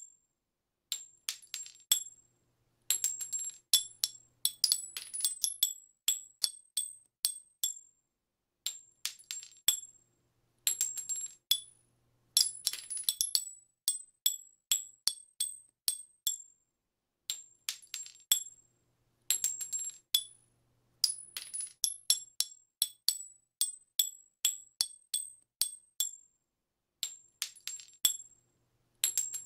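Spent brass handgun shell casings dropping and bouncing on a hard surface: many sharp metallic clinks, each with a bright ring, falling in clusters with short pauses between.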